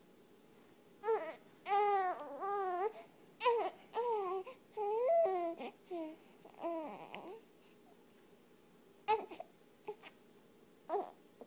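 Infant crying: a string of wavering wails for the first several seconds, then a few short cries with pauses between them.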